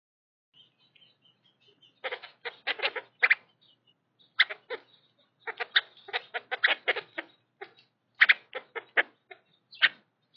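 Yellow-headed blackbirds calling up close: a quick run of short, harsh calls in clusters, starting about two seconds in, with a few faint thin high notes before them.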